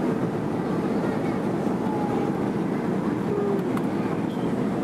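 Steady cabin noise inside a Boeing 737-300 airliner on its landing approach: the even rumble of its CFM56-3 turbofan engines and the airflow past the fuselage, heard from a window seat over the wing.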